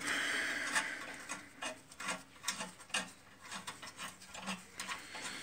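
Light, irregular clicks, taps and rubbing from hands handling parts around a car's rear brake caliper and its bracket, with a short hiss at the very start.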